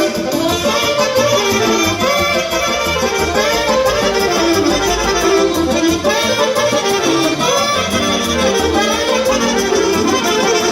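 Instrumental break of a Romanian-language pop song: a melody instrument plays a running tune over a steady bass beat, with no singing.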